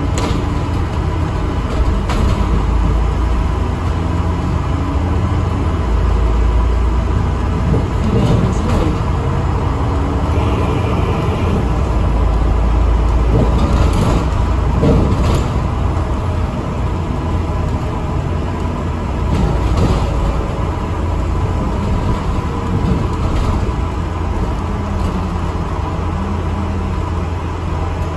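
ADL Enviro400 MMC double-decker bus running in service, a steady low engine and road rumble with a constant whine. The engine note rises and falls near the start and again near the end, and there are a few sharp knocks midway.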